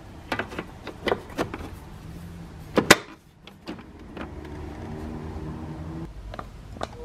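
Metal bottom cover of a Keurig coffee maker clicking and knocking as it is handled and seated on the plastic base, with one sharp knock about three seconds in. A steady low whir follows for about two seconds.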